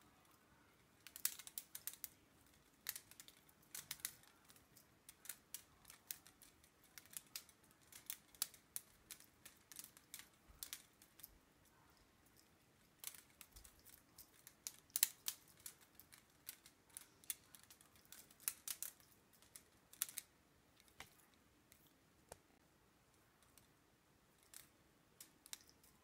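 Light, irregular clicks and taps of a mechanical pencil knocking against fingers as it is spun and flipped in the hand. The clicks come in quick clusters with short pauses and grow sparse near the end.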